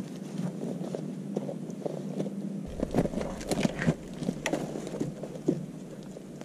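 Irregular crunches, knocks and clicks of someone moving about in snow and handling wooden poles, the loudest cluster a few seconds in.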